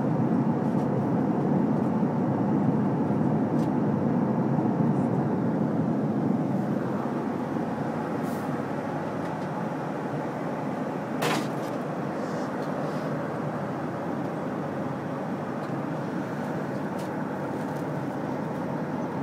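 Steady cabin noise of an Airbus airliner in cruise, the engines and airflow heard from inside the cabin. It eases a little after about six seconds, and there is a single sharp click about eleven seconds in.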